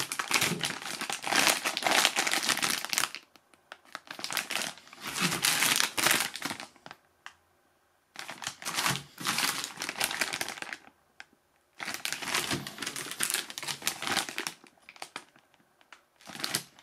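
Clear plastic bags crinkling as hands handle the filament spools sealed in them. The crinkling comes in four or five bursts of a few seconds each, with short quiet pauses between.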